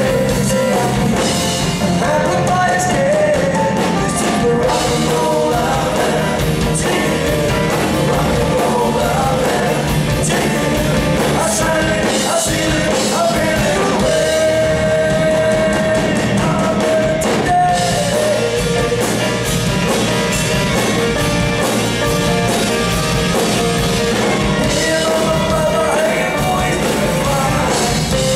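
Live rock band playing a rock and roll song: a lead singer over electric guitar, bass guitar and drum kit, heard from the audience through the hall's PA.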